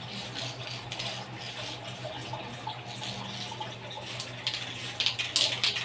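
Aerosol lubricant spray hissing in short bursts onto a bike suspension fork's stanchions, over a steady low hum. A few louder sharp clicks come near the end.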